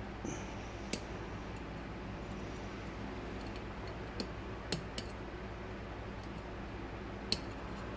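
Lock pick and tension wire working the levers inside a large old English lever lock: a handful of sharp metallic clicks, about five, spread over a steady low hum.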